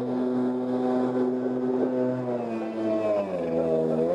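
Stand-up jet ski engine running at a steady pitch under way, then dropping in pitch about three seconds in and climbing back up near the end.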